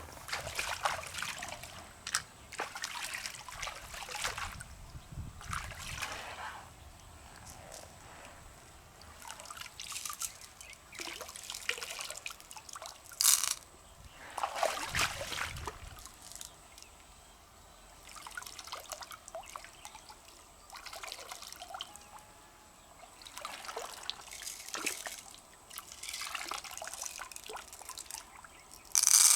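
Water trickling and dripping in repeated short bursts, with sharp clicks between them and a louder click about halfway through.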